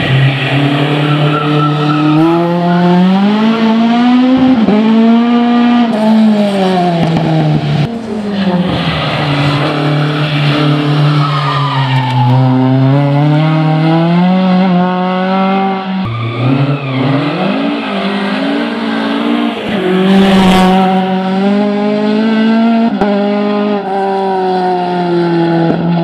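Ford Escort Mk2 race car's Millington four-cylinder engine running hard at high revs, the pitch climbing and dropping back again and again as it accelerates and eases off.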